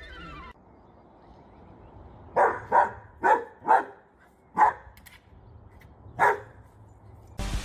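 A dog barking six times in short, sharp barks, four in quick succession, then two more spaced out.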